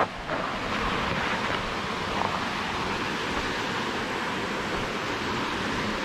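Steady rush of water from a waterfall, an even hiss with a brief knock right at the start.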